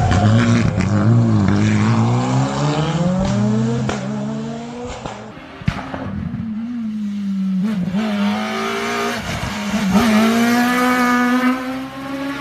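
Rally car engines at full throttle on a tarmac stage, revs climbing hard through the gears. Each quick upshift drops the pitch with a sharp crack before it climbs again.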